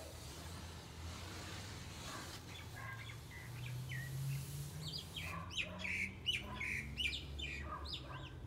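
Birds chirping: a few faint calls, then a quick run of short, falling chirps in the second half.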